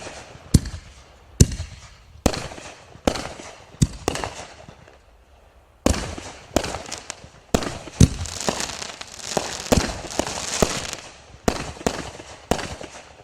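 Consumer firework shells from a reloadable canister-and-ball shell kit going off in a quick series of sharp bangs, about one a second, each trailing off. There is a short lull partway through, then a denser stretch of overlapping bursts, and the bangs stop near the end.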